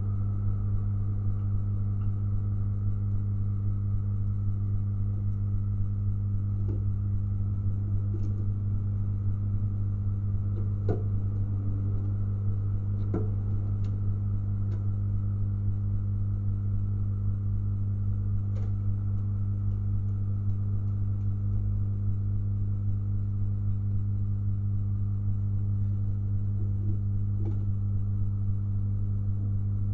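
A steady electrical hum, a low tone with overtones, runs without change. A few faint taps and knocks come and go as pigeons land and move on the wooden boards.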